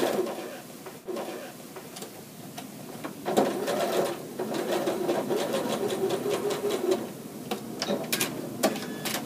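Janome sewing machine stitching a seam through layered quilting fabric. It runs for a few seconds, then stops, and a few sharp clicks follow near the end as the work is taken out from under the presser foot.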